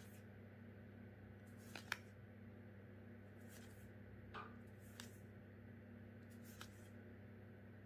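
Magic: The Gathering cards being flipped through one by one in the hand: a few soft card-on-card clicks and slides, the sharpest a quick pair about two seconds in, over a faint steady electrical hum.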